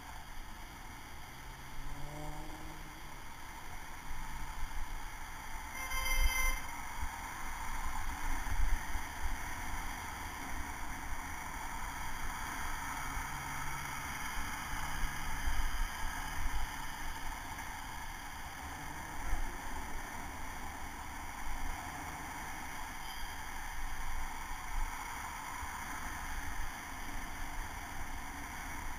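Wind buffeting a bicycle helmet camera while riding, over the steady noise of passing city car traffic. About six seconds in there is a short, high pitched beep.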